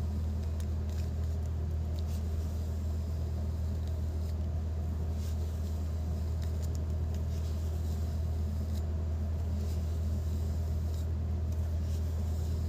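Steady low background hum and rumble, unchanging throughout, with a few faint light ticks.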